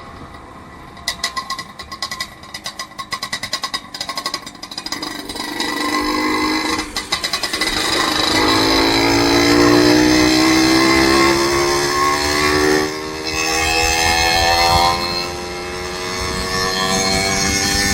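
Vehicle engine on the road: a rapid uneven ticking at low speed in the first few seconds, then the engine revs up with its pitch rising about eight seconds in and keeps running loudly.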